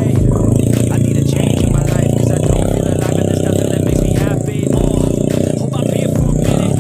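A small motorcycle engine running hard under load, hauling oil palm fruit up a long climb, with music playing over it.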